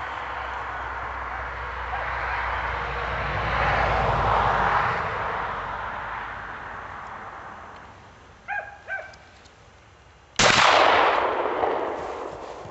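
A single loud shotgun slug shot about ten seconds in, with a long echoing tail as it fades. Before it, a rushing noise swells and dies away, and two short high calls sound just before the shot.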